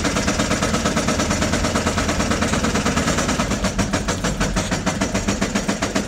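LBZ Duramax 6.6 L V8 turbodiesel running with a heavy, rapid, even rod knock, about five or six knocks a second, heard from inside the cab. The knock comes from a bearing that has failed after the engine was driven with no oil pressure.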